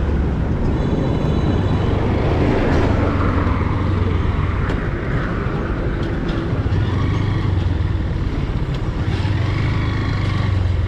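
A motor vehicle's engine running steadily on the move, with a low hum under a haze of road noise.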